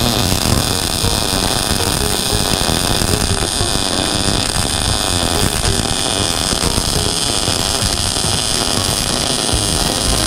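MIG welding arc crackling steadily as a continuous bead is laid on a steel suspension bracket.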